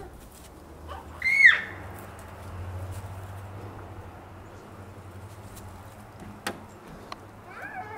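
A toddler's high-pitched squeal about a second and a half in, followed near the end by a shorter wavering babble; a sharp click about six and a half seconds in.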